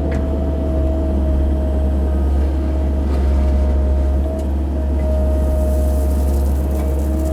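CAT 308 mini excavator's diesel engine running steadily under load: a deep drone with a steady higher whine over it, and a few faint clicks.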